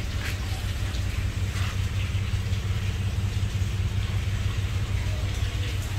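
A running machine giving a steady low mechanical hum, with a few faint brief higher sounds over it.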